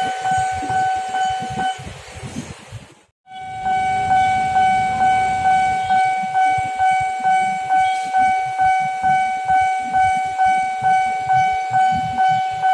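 Railroad level-crossing warning bell: an electronic ringing tone struck about twice a second, steady and unbroken. It fades and cuts out briefly about three seconds in, then resumes louder.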